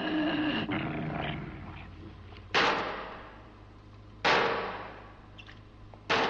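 Three heavy metallic crashes, each starting suddenly and ringing away over about a second, at intervals of roughly a second and a half to two seconds: the cornered creature battering the airlock door. At the start, a zapping stun-gun shot fades out.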